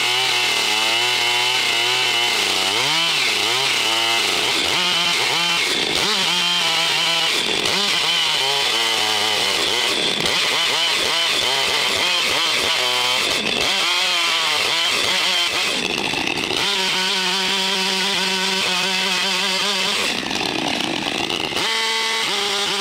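Two-stroke chainsaw at high revs, ripping lengthwise down through a log. Its engine pitch rises and falls repeatedly as the bar loads up in the cut, then holds steadier later on.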